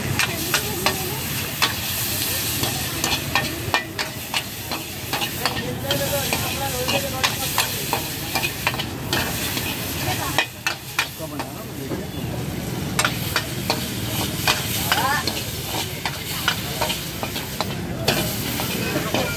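Noodles being stir-fried in a wok over a high flame: a steel ladle clanks and scrapes against the wok many times, irregularly, over steady sizzling.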